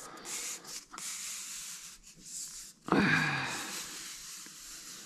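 Rustling and rubbing of adhesive foam tape being handled. About three seconds in comes a short, louder sigh-like breath from the person working, falling in pitch.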